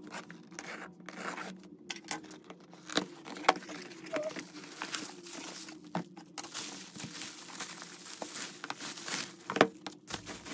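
A utility knife slitting packing tape on a cardboard box, then bubble wrap crinkling and rustling as items are unwrapped and lifted out, with scattered sharp clicks and scrapes.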